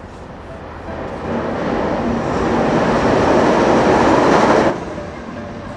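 A passenger train crossing a steel trestle bridge overhead. Its noise builds over a couple of seconds, then drops off sharply about three-quarters of the way through.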